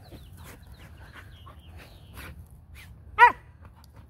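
A dog playing rough gives one short, sharp yip about three seconds in, falling in pitch, over faint scuffling on the grass.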